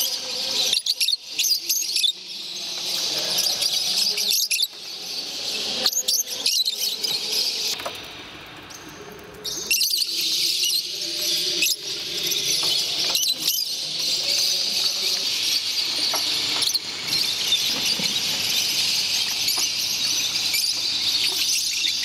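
Many caged lovebirds, mostly Fischer's lovebirds, chattering and squeaking together in a dense, high-pitched din with scattered clicks. It dips briefly about eight seconds in.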